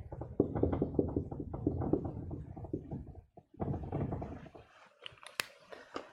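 Dry-erase marker writing on a whiteboard: a quick run of short scratchy strokes and taps, then a few sharp clicks near the end.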